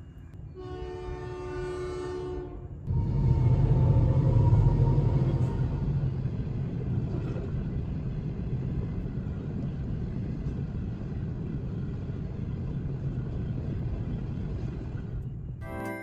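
A horn sounds steadily for about two seconds, then a heavy vehicle passes with a loud low rumble that slowly fades away.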